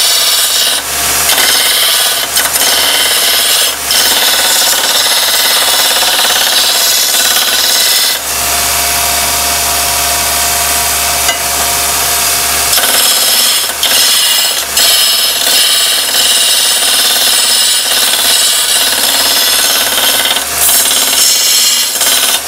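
Electric belt grinder grinding the edge of a dimpled steel disc: a loud, steady grinding hiss with brief breaks as the piece is lifted and repositioned. For several seconds in the middle the work is eased off the belt, and the grinder's motor hum and a steady whine come through on their own before grinding resumes.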